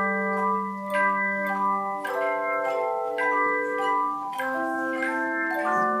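An ensemble of handheld tone chimes playing a tune. The notes are struck one after another, and each rings on for a second or more, overlapping the next, so several notes sound together.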